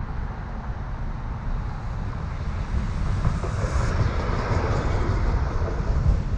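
Steady low rumble of wind and road noise from a car driving on a city street. A streetcar passes the other way, its sound swelling through the second half.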